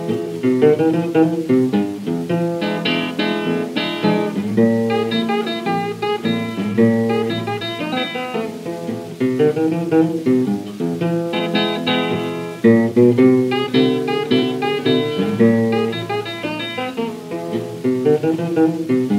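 Solo acoustic country blues guitar instrumental intro, with rapid picked notes over a bass line, played back from a 1936 78 rpm record, with a thin sound lacking the deepest bass.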